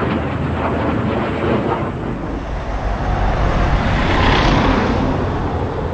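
Jet noise from a military fighter jet flying overhead, a loud rushing sound that starts suddenly and swells to its loudest about four seconds in.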